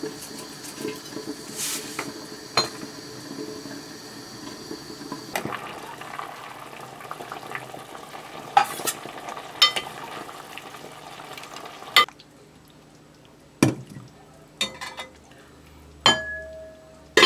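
Food sizzling in a frying pan while a utensil stirs and scrapes against it. About twelve seconds in the sizzle stops, and a few separate clinks and knocks of dishes and cutlery follow.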